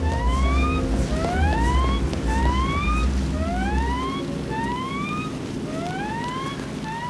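A rising whooping tone, repeated about three times every two seconds, over sustained lower tones and a low rumble that fades out about four seconds in.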